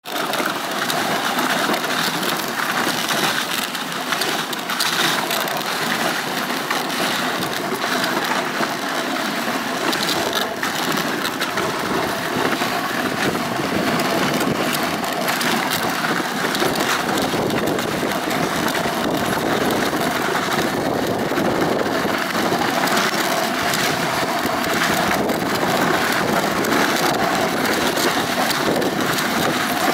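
Dog sled runners sliding over packed snow, a steady crunching hiss.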